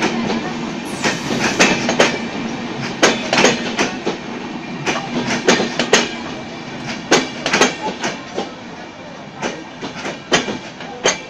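Bangladesh Railway intercity passenger coaches rolling past close by at low speed, steel wheels clacking over rail joints in irregular pairs of sharp clicks over a steady rumble. The rumble eases off a little toward the end.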